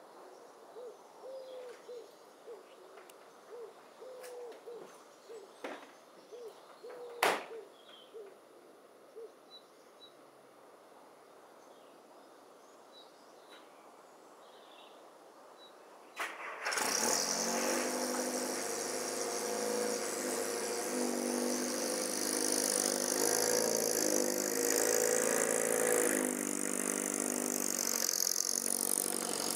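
A bird calls over and over for the first several seconds, with one sharp click about seven seconds in. After a quiet stretch, the old Wolseley's four-cylinder engine starts about sixteen seconds in, catching at once, and keeps running with its revs rising and falling.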